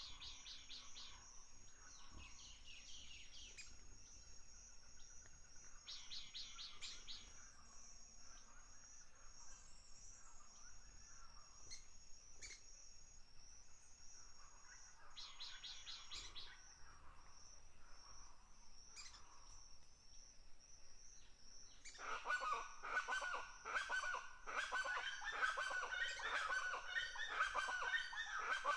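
Birds chirping and calling over a steady high insect trill, with a few short trilled phrases; about three quarters of the way through, a much louder, dense chorus of bird calls sets in.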